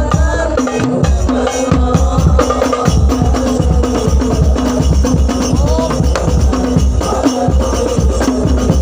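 Instrumental music with no vocal line: a steady drum beat and busy hand percussion with tambourine-like jingles and shakers, under held melody tones.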